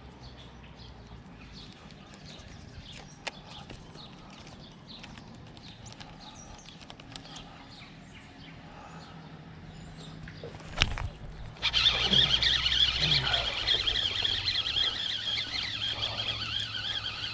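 Faint bird chirps over a quiet background. About eleven seconds in comes a sharp knock, then a sudden loud, steady rushing noise as a largemouth bass that has taken a topwater frog is hooked and fought to the boat.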